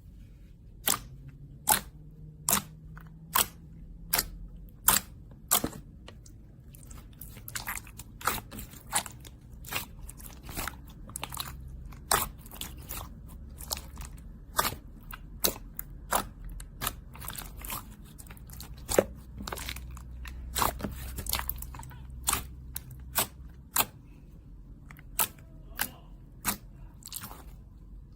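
Slime being pressed and worked by hand, giving a long run of sharp, crisp pops and clicks, irregularly about one or two a second.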